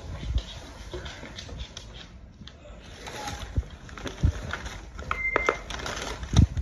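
Pet beaver dragging a large plush toy across a hardwood floor: scuffing and rustling with a few dull thumps, the loudest near the end, and a brief high squeak about five seconds in.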